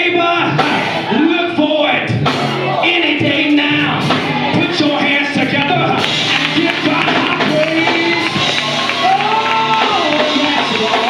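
Church praise-break music with voices singing and shouting over it; the music gets fuller and brighter about six seconds in, and a long sung note rises and falls near the end.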